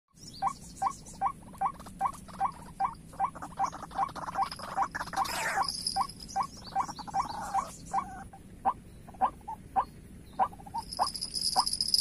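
White-breasted waterhen calls: a steady run of short, clipped notes, about two and a half a second, that turns more irregular after about eight seconds. Insects hum high in the background, louder near the end.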